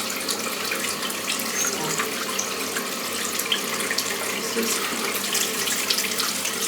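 Bathroom tap running steadily into a sink, with small irregular splashes as hands work in the water to wash the face.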